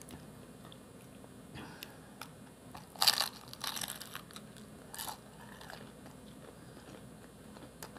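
Crunching bites and chewing of a fried apple pie in a crisp wrapper: a loud crunch about three seconds in, a run of smaller crunches right after, and another crunch about five seconds in.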